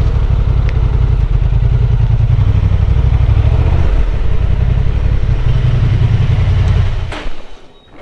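Honda Transalp 750's parallel-twin engine running at low speed as the motorcycle rolls slowly along, then switched off about seven seconds in.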